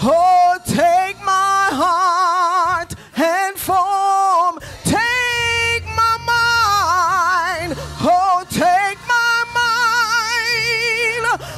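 A woman singing a slow worship song into a microphone, holding long notes with a strong vibrato.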